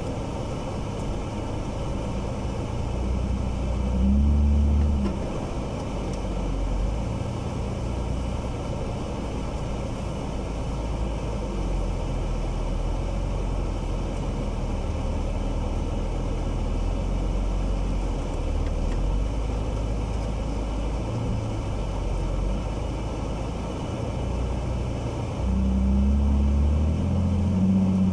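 Jeep TJ's engine running as it drives over snow, a steady low rumble. It swells briefly about four seconds in and again near the end.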